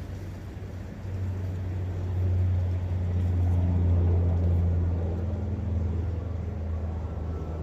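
Low engine rumble of a passing motor vehicle. It swells over the first few seconds and slowly fades, over a faint steady hiss of flowing water.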